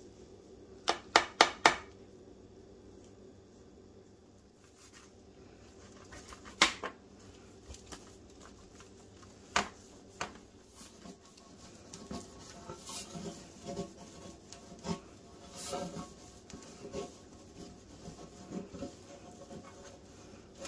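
Four quick, sharp knocks as a whisk is tapped against the rim of a batter bowl, then two single knocks. After that comes irregular rubbing and scraping as butter is spread over a metal baking pan, with the pan ringing faintly.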